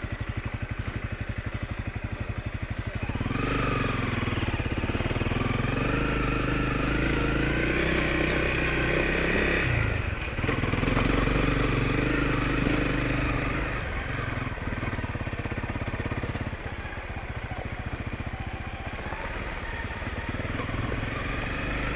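Honda CRF250L's single-cylinder four-stroke engine idling with an even pulse, then revving up as the bike pulls away about three seconds in. The revs rise and fall, with a brief dip around the middle, then settle to a steadier, lower run near the end.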